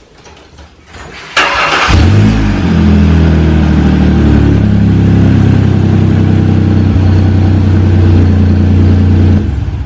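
Car engine started up and idling very loud and deep through a big hole in the exhaust flex pipe, sounding like a Harley-Davidson or big dual exhaust pipes. A short burst of cranking comes about a second and a half in, the engine catches and runs steadily, then cuts off suddenly near the end.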